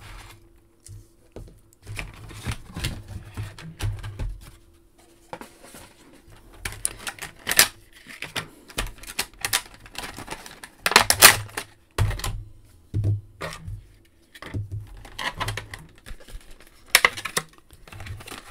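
Hands handling toy packaging: a cardboard box and hard plastic tray and cage knocking and rustling, with many irregular light clicks as the figure's twist ties are worked loose. A louder plastic crackle comes about eleven seconds in.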